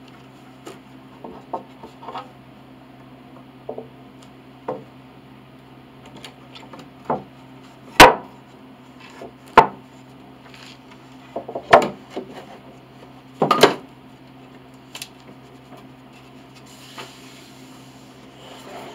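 Wooden pieces handled on a workbench: a strip of old cherry and wooden pattern pieces knocked and set down, giving scattered sharp clacks with light rubbing in between, the loudest four between about 8 and 14 seconds in. A steady low hum runs underneath.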